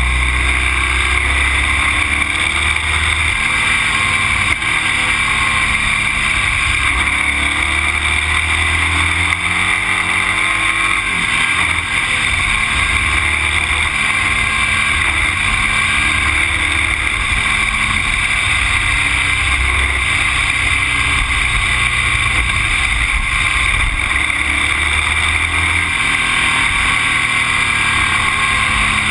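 A vehicle's engine running while under way, its pitch rising and falling as the revs change, over a steady loud rush of wind and road noise.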